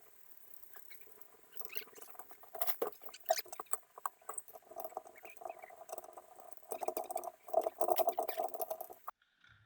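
Hand tools working on engine parts: rapid, irregular metallic clicking and rattling. It is busiest near the end and stops abruptly about a second before the end.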